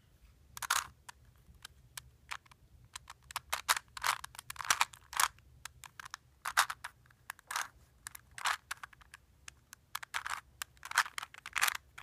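Plastic 3x3x3 Rubik's cube being turned by hand: an irregular run of sharp clicks and short scraping sounds as its layers are twisted.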